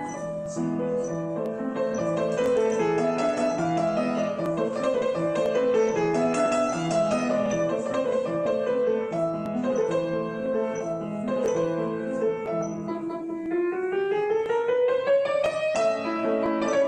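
Grand piano played solo: a moving melody over repeated lower notes, climbing in a quick rising run near the end.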